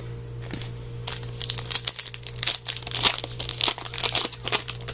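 Crinkling and crackling of packaging as trading cards are handled, a dense rustle of sharp crackles starting about a second in.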